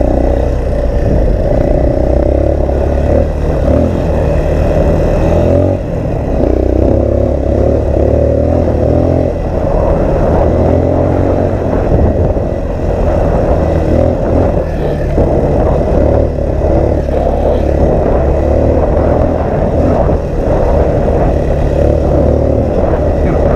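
Small off-road vehicle's engine running steadily while riding a trail, with heavy wind noise on the microphone.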